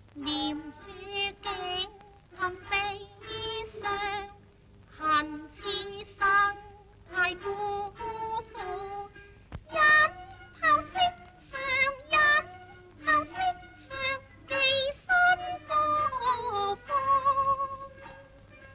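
A woman singing a slow Cantonese film song with vibrato, phrase by phrase, ending on a long held note near the end.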